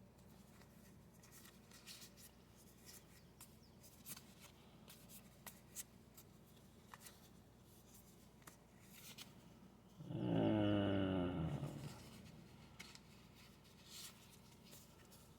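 Baseball trading cards being sorted and handled: soft rustles and light clicks of card edges and sleeves. About ten seconds in, a brief low voice-like hum or groan, falling in pitch, is the loudest sound.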